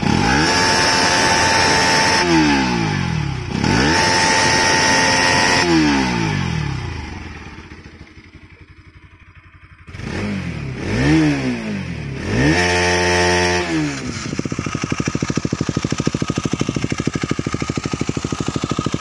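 Single-cylinder motorcycle engines revving through their exhausts: a Bajaj Pulsar NS200 is blipped to high revs several times, each rev rising then falling away, with a short lull in between. From about fourteen seconds in, a KTM Duke's single idles with a steady, fast exhaust beat.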